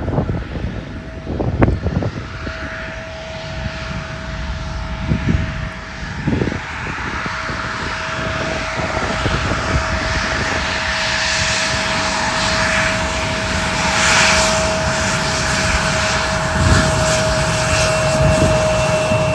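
Mitsubishi CRJ-900 regional jet's two rear-mounted General Electric CF34 turbofans whining steadily at taxi power, growing louder as the jet rolls closer, with a higher-pitched whine joining near the end. A few short thumps come in the first seven seconds.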